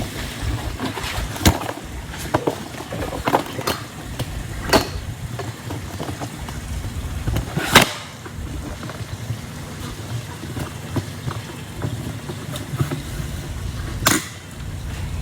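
Handling and walking noise as a charging cable and connector are carried and handled: irregular clicks and knocks over a steady low rumble, with a sharper knock about eight seconds in and another near the end.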